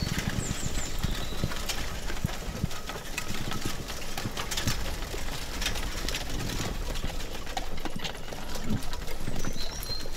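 Horse-drawn carriage ambience: a horse's hooves clip-clopping and the carriage rumbling along, with irregular knocks and clatter, and a few short bird chirps about half a second in and near the end.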